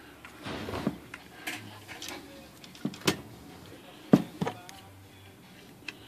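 Scattered sharp metal clicks and knocks from a manual typewriter being handled by hand, about seven in all, the loudest a little after four seconds in.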